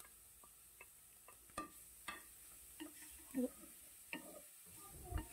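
Wooden spatula scraping and stirring in a frying pan, giving scattered light clicks and knocks of wood on the pan and plate as pork, onion, garlic and ginger are sautéed in rendered pork fat, over a faint sizzle.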